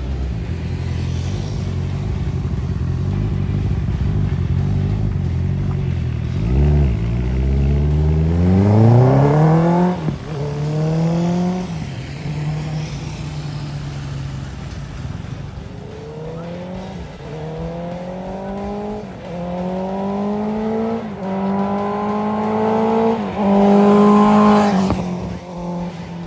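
Honda CB650 inline-four motorcycle engine idling, a quick throttle blip about six seconds in, then pulling away and accelerating up through the gears. The engine pitch climbs and drops back at each of several shifts.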